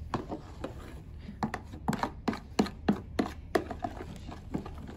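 A metal spoon stirring a thick glue-and-baking-soda slime mixture in a plastic tub, knocking and scraping against the tub's sides in a quick, irregular series of clicks, about three a second.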